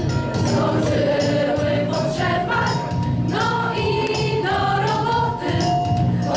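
A choir singing a Christmas carol together, the sung lines moving over sustained low notes.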